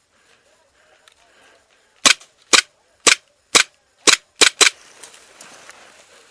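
Airsoft gun firing seven single sharp pops, about two a second, starting about two seconds in, with the last three coming faster.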